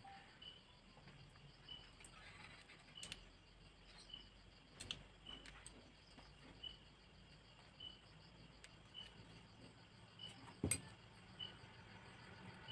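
Near silence: a cricket chirps faintly at an even pace, about once every three-quarters of a second, with a few soft clicks, the sharpest a little before the end.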